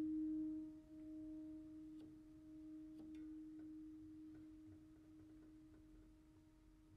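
A single low tone from a struck instrument, ringing on and slowly fading away, with a few faint clicks.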